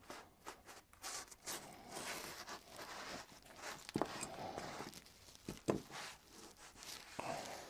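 Cloth rag wiping over sanded joints of a model-railroad highway: soft, irregular rubbing swishes, with two light knocks about four and six seconds in.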